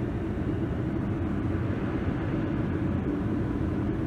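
Steady low rumble of a Boeing 777-300ER's engines and airflow heard inside the passenger cabin, with a faint steady hum.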